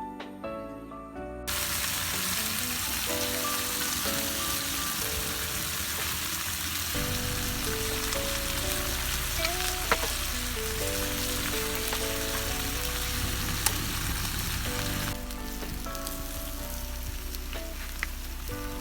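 Vegetables sautéing in a hot pan: a steady sizzle starts about a second and a half in and eases a little near the end, with a few sharp clicks. Soft background music plays over it.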